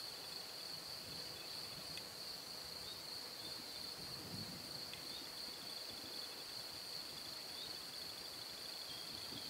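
Crickets chirping steadily in a high, unbroken trill, with a faint low rumble of distant thunder about halfway through.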